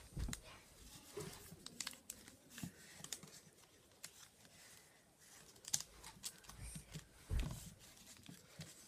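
Origami paper being folded and creased by hand: scattered light crinkles and rustles of the sheet, with two soft thumps against the table, one just after the start and one near the end.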